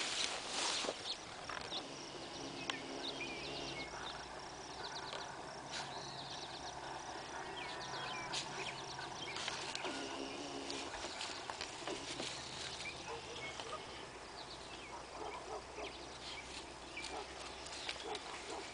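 Birds chirping over a soft rustle of leafy plants as a red heeler puppy noses through them, with a faint steady low hum underneath.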